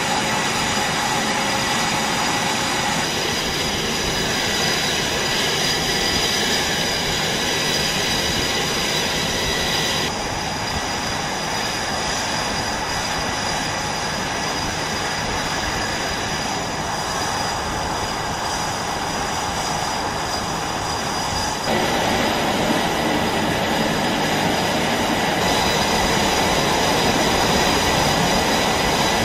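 Jet engines running on a carrier flight deck: a steady rushing noise with a high, even whine. The mix changes abruptly three times, about 3, 10 and 22 seconds in.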